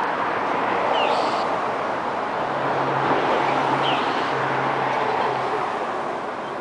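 Steady road-traffic noise with a bird's short high call repeated three times, about three seconds apart. A low engine hum sits under it for about three seconds in the middle.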